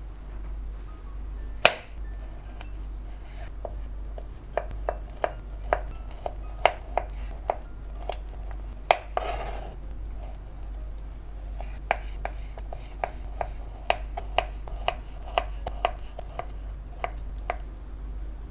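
Knife slicing through a sausage onto a plastic cutting board, a sharp tap of the blade on the board with each cut, about two to three cuts a second, with a brief scrape near the middle.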